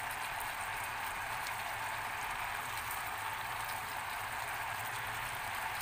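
Sweet soy, oyster sauce and Sprite sauce boiling hard in a frying pan around a whole chicken, a steady bubbling sizzle as it reduces down.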